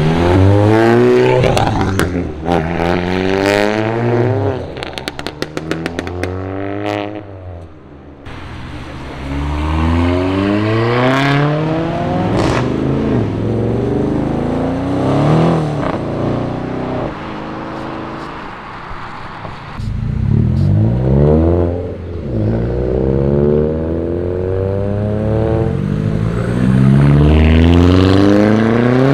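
Tuned Audi/Volkswagen car engines accelerating hard, their pitch climbing and falling back at each upshift, over and over, with bursts of sharp crackles in the first few seconds.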